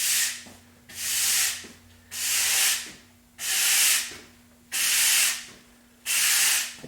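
Even, repeated hissing rubbing strokes, about one every second and a quarter, six in all, over a faint steady hum.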